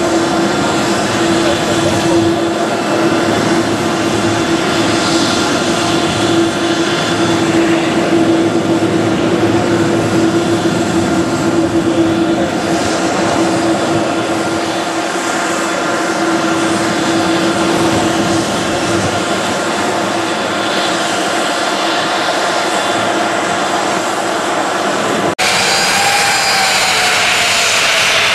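Boeing 787-8 Dreamliner's GE turbofan engines running at taxi idle: a steady jet whine made of several held tones, with a strong steady hum that fades about two-thirds of the way in. Near the end the sound cuts abruptly to a Boeing 737's jet engines at taxi, brighter and hissier, with a tone that rises and falls.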